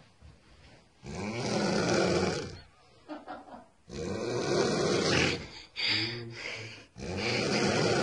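A young woman snoring in her sleep: long noisy snoring breaths with a low rattle, one starting about every three seconds, with a shorter snort-like breath just before the last one.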